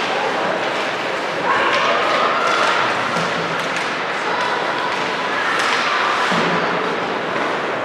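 Basketball game sounds in a gym: the ball thumping on the hardwood floor and sneakers squeaking, over a murmur of crowd and player voices.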